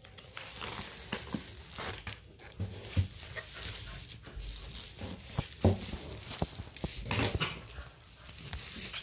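Bubble wrap and plastic packing crinkling and tearing as it is peeled off by hand, with a few sharp knocks from the package being handled.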